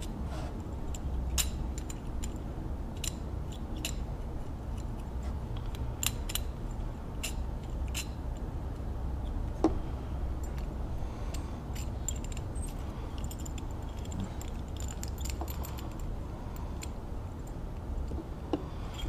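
Small metal parts of a sewing machine foot pedal's contactor clicking and clinking as a nut is fitted by hand. The light clicks come irregularly, over a steady low hum.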